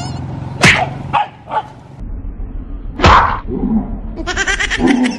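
A small dog barking and yelping sharply, loudest about half a second in and again about three seconds in, with shorter yelps between: the startled cries of a sleeping dog when a big woven basket comes down over it.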